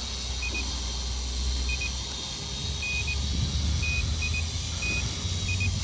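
Wind buffeting the microphone: a steady low rumble with hiss. Short high electronic beeps sound irregularly, about once a second.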